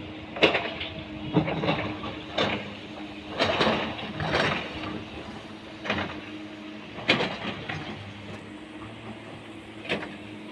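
A steady low machine hum, such as a diesel earthmover running on the site, with about nine irregular, short crunching or scuffing noises over it.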